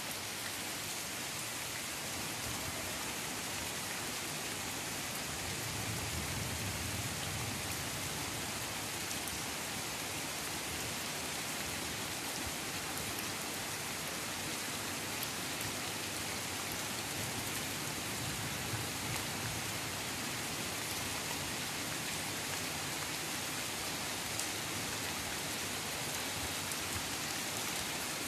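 Steady rain falling, a continuous even hiss with scattered faint drop ticks.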